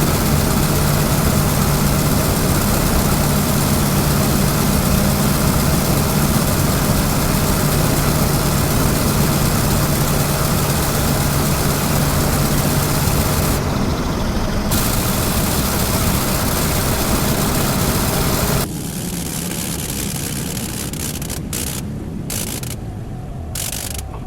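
Dubbed sound effect of a First World War rotary aero engine running steadily at full power. About two-thirds of the way through it drops to a quieter, thinner running, then cuts in and out several times near the end, following the throttle changes.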